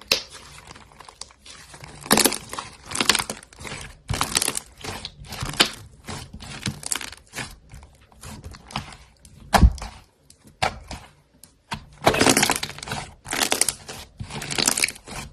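Slime being squeezed and pressed by hand, giving irregular crackling, popping bursts, with one sharp knock about halfway through.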